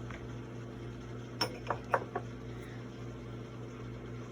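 Four light clinks of a measuring spoon against a mixing bowl about a second and a half in, over a steady low hum.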